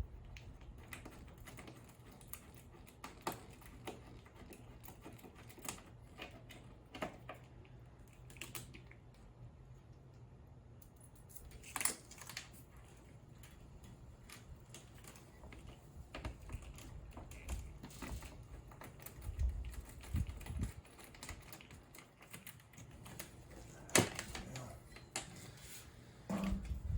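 Irregular light clicks and taps of hands working on a golf cart's wiring harness, handling wires and plastic connectors, with a few sharper knocks. A faint low hum is there in the first half.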